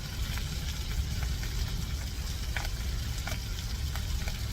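Dried fish frying in hot oil in a pan: a steady sizzle with scattered sharp pops and crackles, over a steady low rumble.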